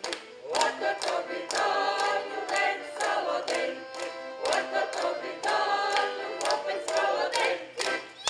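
Group of voices singing a Ukrainian folk song without instruments, over an even beat of sharp hits, about two to three a second.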